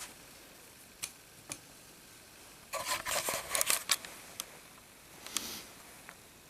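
Handling noises: two light clicks, then a little over a second of clattering and scraping that is the loudest part, another click, and a short rustle near the end.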